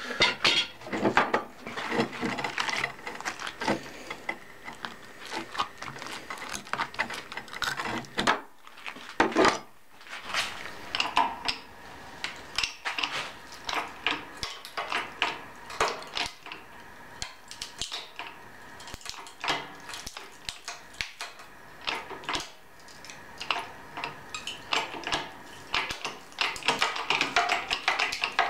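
Many irregular metallic clicks, taps and clanks from a microwave oven transformer being handled and worked under a shop press, with louder clusters near the start, around a third of the way in, and near the end.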